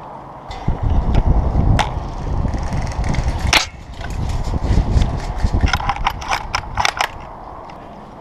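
Airsoft guns firing. There are two single sharp cracks, the second louder, about two and three and a half seconds in. A quick string of about eight shots follows near the end. Under them runs a heavy low rumble.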